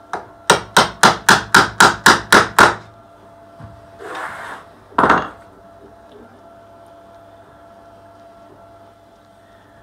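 Hammer striking the plunger of a hand-held corner-pin insertion tool, driving a corner pin into a wooden picture-frame mitre joint: nine quick, sharp blows, about four a second. A brief rustle and a single knock follow a couple of seconds later.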